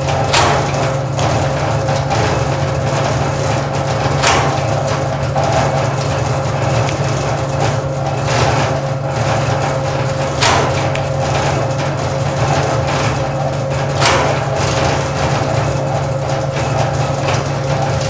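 Servo-hydraulic shake table running during a seismic test, a steady loud hum with a constant whine over it. A few sharp clacks come every few seconds.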